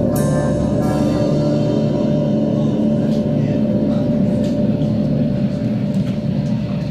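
Black metal band playing live in a slow ambient drone passage: a steady held tone over a dense low rumble, with a few soft cymbal-like strokes.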